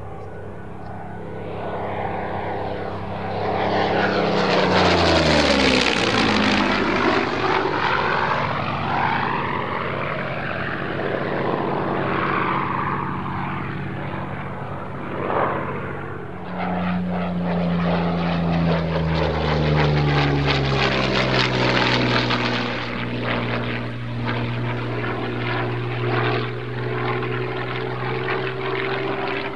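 Yakovlev Yak-3 fighter's liquid-cooled V12 piston engine and propeller in display passes, the engine note dropping in pitch as the aircraft goes by. It passes loudest about five seconds in, then sweeps by again from about 17 seconds, its note falling steadily until near the end.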